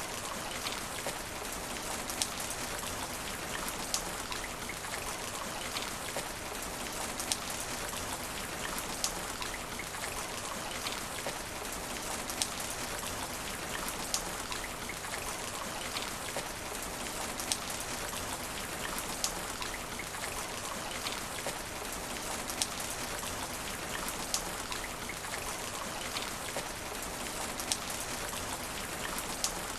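Steady rain falling on asphalt, an even hiss with frequent sharp drip ticks throughout.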